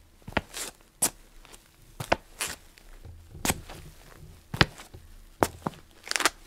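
Feet of someone dancing to music heard only through headphones, so no music is heard: irregular sharp steps and stamps, about one or two a second, with a longer scuff or slide near the end.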